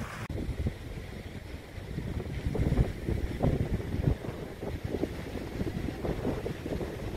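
Wind buffeting the phone's microphone: an uneven low rumble that swells and falls in gusts.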